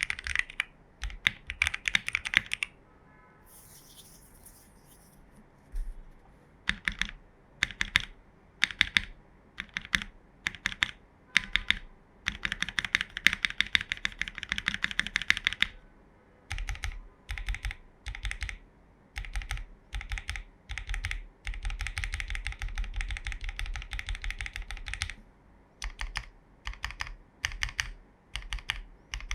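Fuji 75 mechanical keyboard with lubed, filmed Gateron Ink Box Black linear switches on a polycarbonate plate, being typed on in bursts. There is a pause of about three seconds near the start, then short runs of keystrokes, with longer fast runs in the middle and later on.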